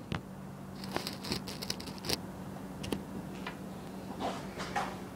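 Scattered small clicks, taps and brief rustles over a steady low hum.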